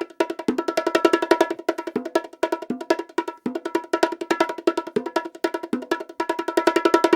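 Bongos played by hand in a fast, busy rhythm, many ringing pitched strikes a second, with deeper accented hits every second or so.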